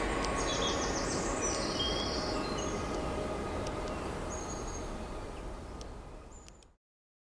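Outdoor ambience of even rushing noise with a few short, high bird chirps, fading out steadily into silence near the end.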